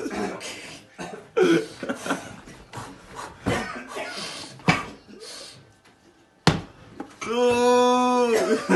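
Chatter and laughter, then a single sharp knock about two-thirds of the way in, followed by a long held shout of one voice, lasting over a second, as a lidded wok is turned over to flip a potato tortilla.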